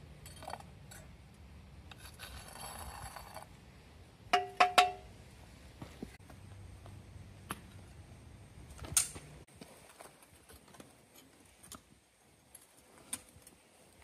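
A metal skimming spoon clinks and scrapes against the crucible while dross is skimmed off molten aluminum. Three quick ringing clinks come about four seconds in and another about nine seconds in. A low rumble underneath stops suddenly about nine and a half seconds in.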